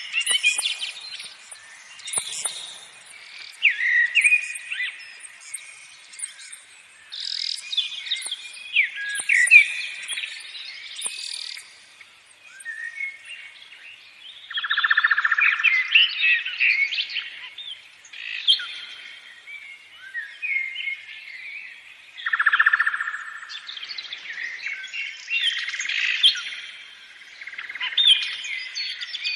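Several songbirds singing and chirping at once, with overlapping whistles, quick chirps and buzzy trills.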